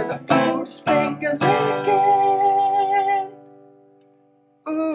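The channel's theme jingle: strummed acoustic guitar chords and a man singing, ending on one long wavering sung note that fades out about three seconds in. After a moment's silence, a man's voice breaks in near the end.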